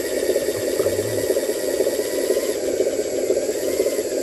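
Radio-controlled dump truck's hydraulic pump running steadily as the tipper ram lifts the loaded bed, a fast-fluttering mechanical buzz.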